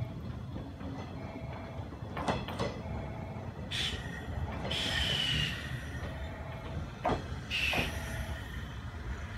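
JR 105 series electric train pulling slowly into a station: a low running rumble with a few sharp clacks of the wheels over rail joints, and three short high brake squeals about four, five and eight seconds in, the middle one the longest and falling slightly in pitch, as the train slows to a stop.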